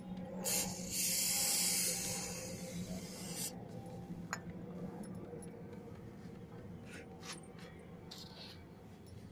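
Aerosol wound spray hissing as it is sprayed onto a maggot wound on a dog's paw: a brief spurt, then one long hiss of about two and a half seconds. A few faint clicks follow.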